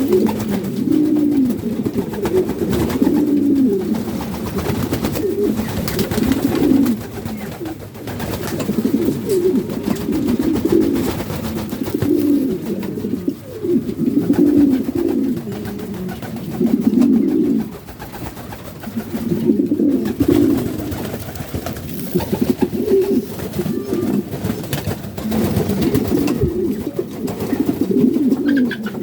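Domestic pigeons cooing, several low, throaty coos overlapping almost without a break, with brief lulls.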